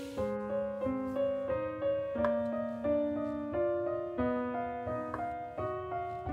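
Background piano music: a gentle melody of single notes over a lower line, a new note about every third to half second.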